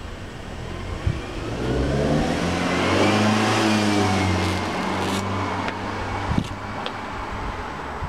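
A car's engine passing by, rising in pitch as it speeds up, loudest about three to four seconds in, then easing off. A couple of sharp clicks sound over it.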